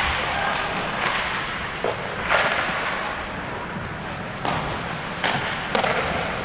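Ice hockey game play: sticks and puck knocking and skates scraping on the ice, a few sharp hits spread through, with the rink's echo.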